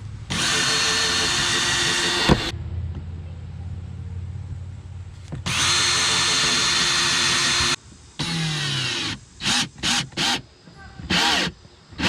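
Power drill running, two steady runs of about two seconds each followed by several short bursts that spin up and wind down, drilling holes and driving screws to fasten a new boat seat base down.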